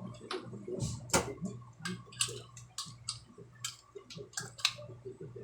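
A run of irregular sharp clicks and taps, about a dozen, the loudest about a second in, over a steady low hum.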